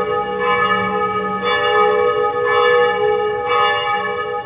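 Church bells ringing, a new strike about once a second, each ringing on under the next.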